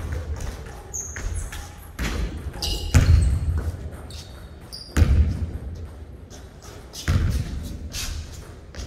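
Basketball bouncing on a hardwood gym floor: about five heavy thuds a second or two apart, the loudest about three seconds in, each echoing in the hall. Between the bounces come a few short, high sneaker squeaks.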